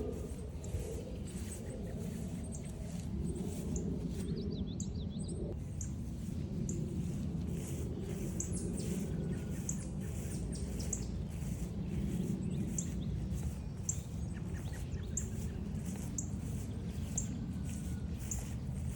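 Small birds chirping and calling, over steady walking footsteps at about two a second and a low outdoor rumble.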